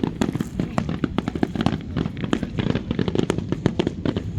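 Fireworks going off in a dense barrage: many sharp bangs and crackles in quick succession, with no pause.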